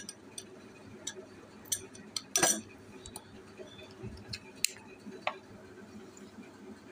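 Scattered light clicks and clinks of a metal spoon against a small glass bowl and of a plastic container being handled, with a louder knock about two and a half seconds in.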